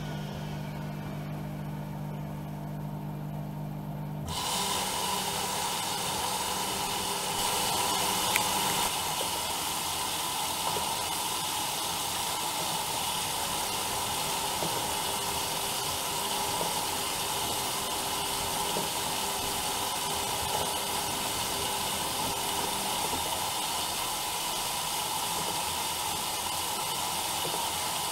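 Bauknecht WAE8575 washing machine: a low motor hum, then about four seconds in the water inlet valve opens and water hisses steadily into the machine.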